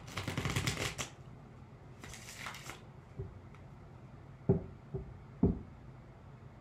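Tarot cards being riffle-shuffled by hand: a rattling riffle in the first second and another about two seconds in. Then two sharp taps about a second apart as the deck is squared.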